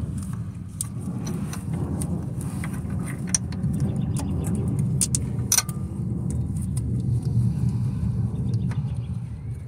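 Light metallic clicks and clinks from hand work at an engine torque mount, over a steady low rumble; the sharpest click comes about five and a half seconds in.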